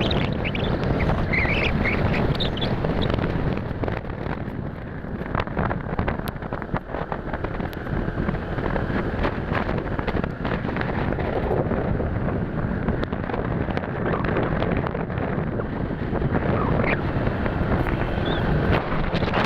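Wind rushing and buffeting over the microphone of a moving motorcycle, with steady road and vehicle noise underneath.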